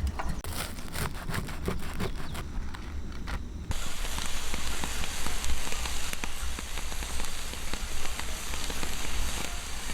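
Scattered sharp crackles and clicks for the first few seconds, then, nearly four seconds in, the steady rush of a flowing stream takes over.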